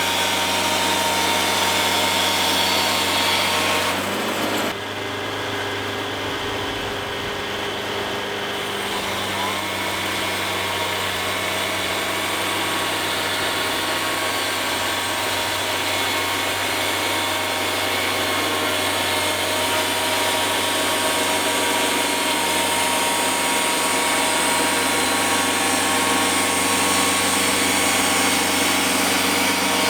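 Wood-Mizer portable band sawmill running, its engine and band blade sawing through a large pine log. The sound dips and loses its high hiss briefly about four and a half seconds in, then holds steady.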